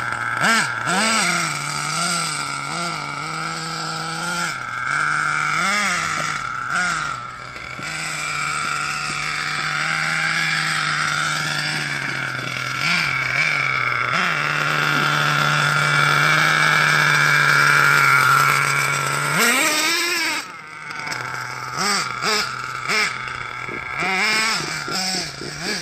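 HPI Savage XL radio-controlled monster truck's small two-stroke engine running and being revved up and down repeatedly. About three-quarters of the way through it climbs in one long rise and cuts off, then gives short throttle blips near the end.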